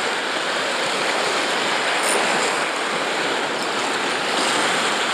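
Waves washing against shoreline rocks: a steady rush of water.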